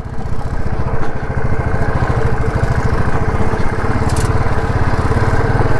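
Royal Enfield Bullet 350's single-cylinder engine running steadily while riding, its exhaust beat an even, fast pulse. A brief hiss comes about four seconds in.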